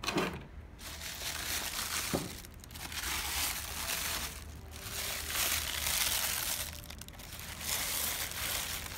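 Tissue paper crinkling and rustling as it is pulled back and handled, in several bursts of a second or two each.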